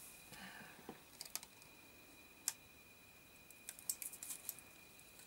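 Faint scattered clicks and ticks of small hardware being handled: a 5.8 GHz SMA antenna being screwed onto an FPV racing quad's video transmitter connector.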